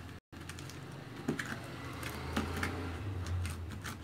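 Sticky slime being scraped and pulled by hand out of a plastic tub: a run of soft clicks and crackles as it peels off the plastic, over a low steady hum.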